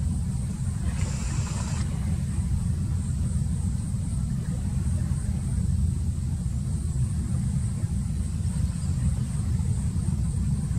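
Fishing trawler's engine running, a steady low rumble as the boat passes. A brief hiss about a second in.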